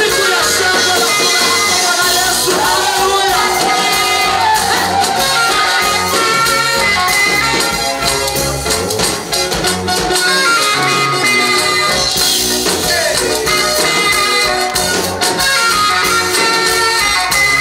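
Gospel praise song in Swahili, a voice singing over instruments with a steady beat of percussion.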